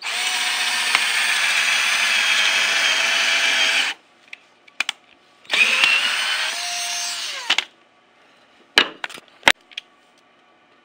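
Cordless drill boring holes into a wooden board: one steady run of about four seconds, then after a pause a shorter run that speeds up and winds down as the trigger is let go. A few sharp knocks follow near the end.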